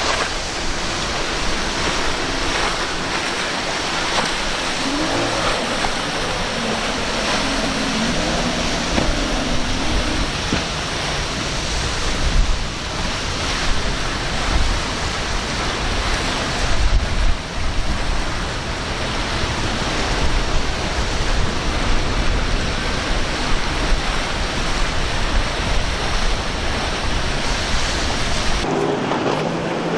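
Waves and surf washing through the inlet as a center-console boat's outboard engines drone faintly underneath, their pitch wavering. There are louder surges a little before and after the halfway point, and a steadier engine note takes over near the end.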